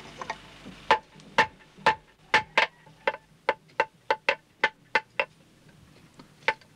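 Blacksmith's hammer striking red-hot iron on an anvil: a run of about a dozen sharp, ringing blows at roughly three a second, stopping about five seconds in.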